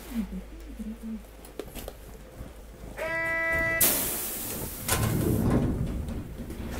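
Inside a Sapporo streetcar M100-class tram: a short buzzer tone sounds for under a second about three seconds in, then a loud burst of air hiss, a thud and a low rumble as the doors close.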